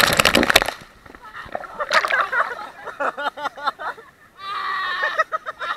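A loud rush of splashing water for under a second as the riders are thrown off the banana boat into the sea. Then the riders shout and shriek in the water, with one long held cry near the end.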